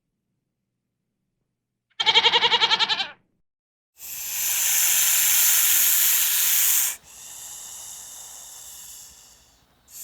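A goat bleats once with a quavering tremble, about two seconds in. A loud hiss follows for about three seconds, then goes on more quietly and fades out near the end.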